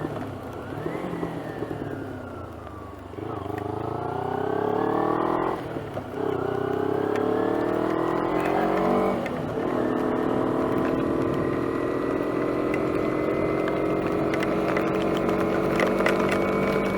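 250 cc motorcycle engine easing off, then accelerating from about three seconds in, pitch climbing through a gear, a brief break for an upshift about six seconds in, climbing again, another shift about nine seconds in, then cruising steadily. Scattered sharp ticks of hailstones striking come in near the end.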